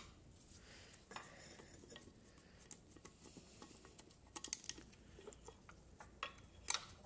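Scattered light metallic clinks and taps from hand tools and small metal parts being handled during work on a quad bike, with a quick run of clicks about four and a half seconds in and the sharpest clink near the end.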